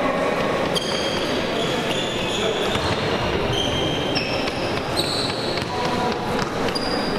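Basketball shoes squeaking on a court floor: many short, high squeaks at changing pitches, with a few knocks of the ball bouncing, over the steady din of a sports hall.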